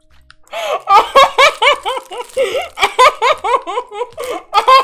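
A woman laughing hard: a run of quick, high-pitched giggles, about three or four a second, starting about half a second in.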